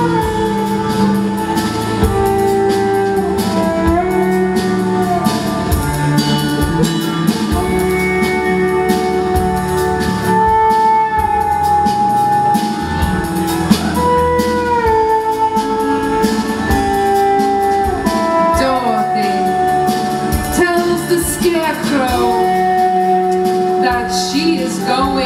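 Live band music, with guitar, bass, cello and drums: a slow melody of long held notes that slide from one pitch to the next over a steady beat.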